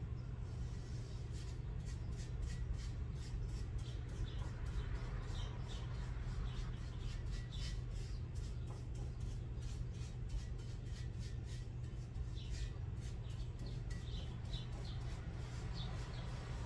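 Light, irregular clicking and rustling from hands working at a ridged grill pan on a gas stovetop, several small clicks a second, over a steady low hum.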